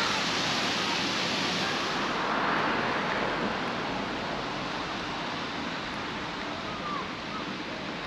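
Wind rushing over the microphone, a steady hiss that eases off after about two to three seconds.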